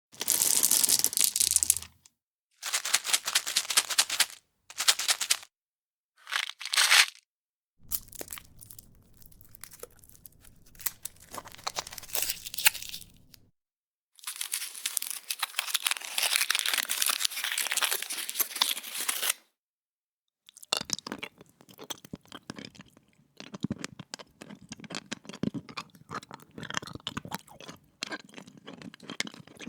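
Plastic hard-candy wrapper crinkling and tearing open in several separate bursts, with a long crinkly stretch in the middle. About two-thirds of the way through it gives way to quieter small clicks and wet sounds of the candy being sucked in the mouth.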